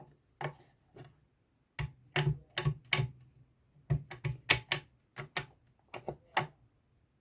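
A run of about twenty quick, irregular hard taps and clicks in bursts: a rubber stamp on a clear block being tapped on an ink pad and pressed down on card stock.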